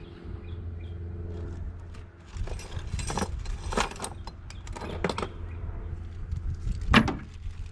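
Hand tools and metal parts clinking and knocking in a scattered series of sharp clacks, the loudest about seven seconds in, over a steady low hum.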